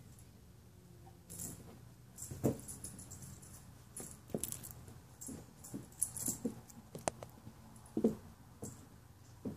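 Two kittens scampering and pouncing at a feathered wand toy on carpet: irregular soft thumps and knocks of paws and bodies, with short light rustles and rattles from the toy.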